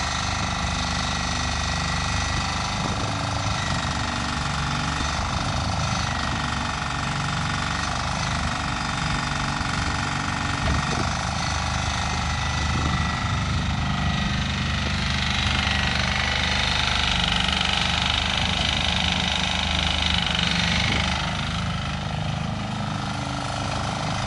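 Floating mini excavator's engine running steadily while the machine digs in the water. A louder, higher hiss joins for several seconds past the middle, then falls away.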